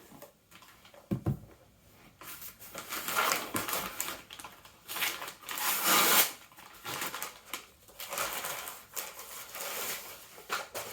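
Jigsaw puzzle boxes and their packaging being handled, with crinkling and rustling in two long stretches and a single knock about a second in.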